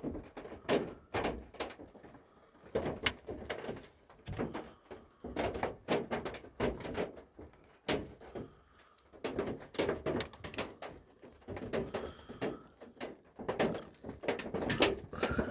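Ice pellets and raindrops hitting a van's metal roof and windshield, heard from inside the van: irregular sharp taps and ticks coming in bunches with lighter spells between.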